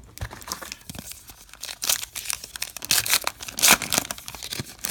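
Silvery foil wrapper of a baseball card pack being torn open: a run of crackling, crinkling rips, loudest in the middle stretch.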